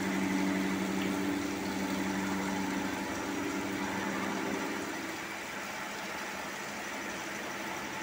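Right-angle milling head on a double-column vertical machining centre cutting a valve body, a steady low hum of several tones over the hiss of coolant and machine noise. The hum fades out about five seconds in, leaving the steady hiss.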